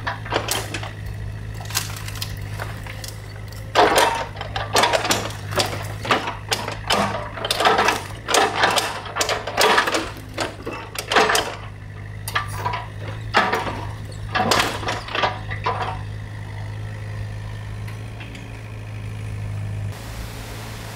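Hydraulic excavator's diesel engine running with a steady low hum, while its bucket knocks, clatters and scrapes against wood and debris at the stream bank in a dense run of impacts through the middle. Near the end the engine hum stops and a steady hiss remains.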